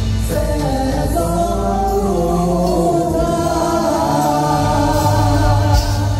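Stage show music played loud through the PA, with voices singing long held notes together over a steady bass.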